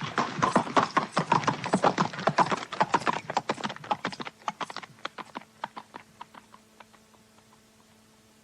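Hoofbeats of galloping horses that start suddenly, then thin out and fade away over about seven seconds.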